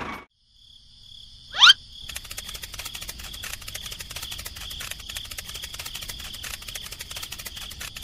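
A quick rising whistle about one and a half seconds in, then a steady chorus of chirping crickets with a dense, fine ticking.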